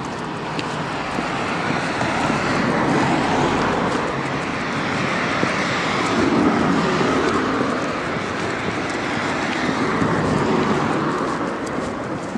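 Road traffic: cars passing one after another, their tyre and engine noise swelling and fading every few seconds.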